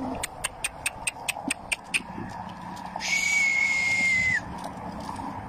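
A person's breathy whistle, held for about a second and a half at one pitch and dipping at the end, comes after a quick run of about ten sharp, high clicks. A faint low steady hum runs underneath.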